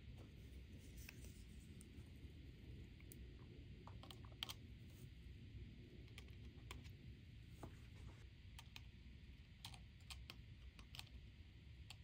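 Faint, scattered light clicks and taps from small hand work on a balsa wing frame, a plastic CA glue bottle being handled and its nozzle touching the wood, over a low steady hum. The sharpest tick comes about four and a half seconds in.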